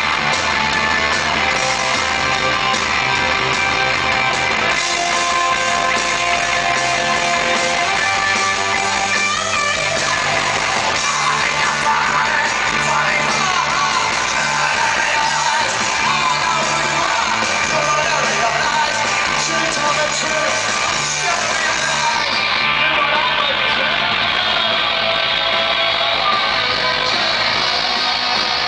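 Punk rock band playing live: electric guitar, bass and drums with a shouted lead vocal, loud and dense, recorded from within the crowd.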